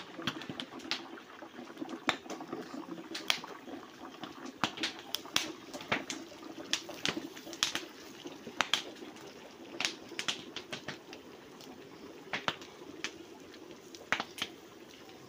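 Open wood fire crackling under cooking pots: irregular sharp pops and snaps over a steady low rush.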